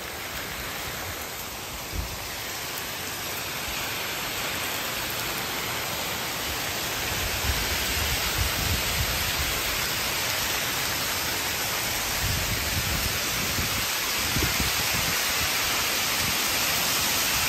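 Hail and rain pelting a wet concrete balcony, a steady dense hiss that grows slowly louder, with a low rumble coming and going in the second half.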